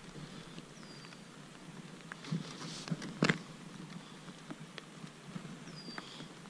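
Quiet open-air background: a faint hiss with a few scattered light clicks and knocks, the sharpest about three seconds in, and two short high falling chirps, one about a second in and one near the end.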